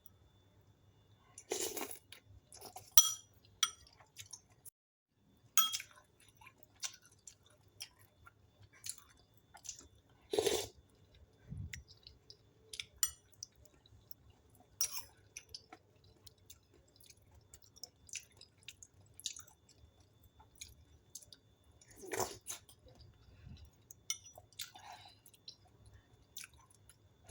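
A person eating: quiet chewing and mouth sounds with scattered small clicks, and a few louder ones about two, ten and twenty-two seconds in.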